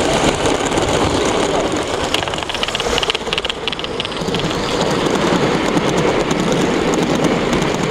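Gauge 1 model train, a City of Truro locomotive hauling coaches, rolling past with a steady rushing noise of wheels on the rails. There is a run of fast clicking about two to four seconds in.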